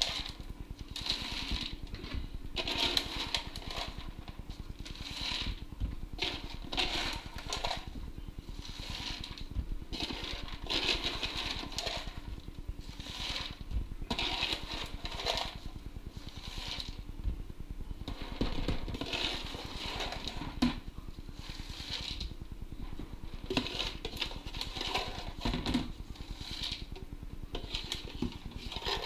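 Dry kibble scooped with a plastic cup and poured into a large plastic container: repeated rattling rushes of pellets, one every second or two.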